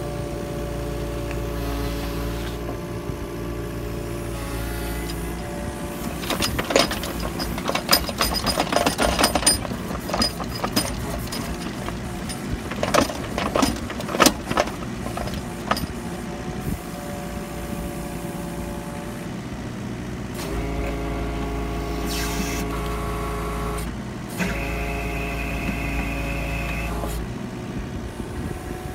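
Compact excavator's diesel engine running steadily, its engine and hydraulic note shifting in pitch several times as the arm and ejector bucket move. From about six to sixteen seconds in there is a run of knocks and clatter as the bucket works the sticky clay.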